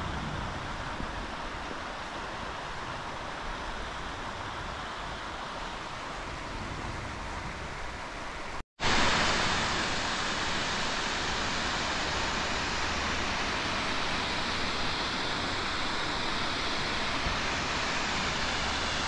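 Steady noise of wind and a distant river, then after a short break about nine seconds in, a louder, steady rush of water from a river below a dam spillway.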